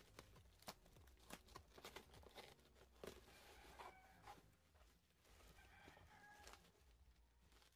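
Faint crinkling and sharp little crackles of bubble wrap and cardboard being handled and pulled apart, with a few faint short pitched calls in the background, about 4 and 6 seconds in.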